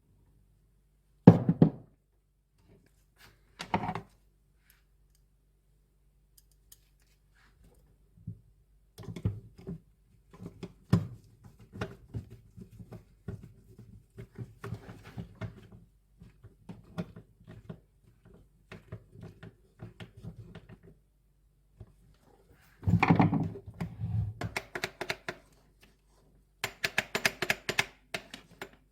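Irregular knocks, clicks and rattles of fan parts being handled and fitted by hand during a fan motor replacement. There is a sharp knock about a second in and another near four seconds, a stretch of lighter clattering in the middle, and busier handling noise near the end.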